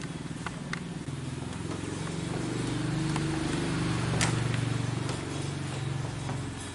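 A low, steady engine hum that swells through the middle and then eases off, with scattered light clicks and one sharper click partway through.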